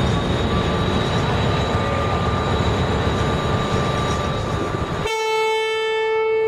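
Irish Rail 201 Class diesel locomotive running slowly with a steady rumble as it hauls a container train in. About five seconds in it sounds its horn, one steady held note that carries on past the end.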